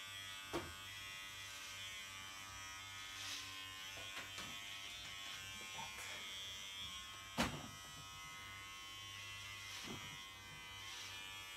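Electric hair clippers running steadily, trimming short hair. A small click comes about half a second in and a sharp knock, the loudest sound, about seven seconds in.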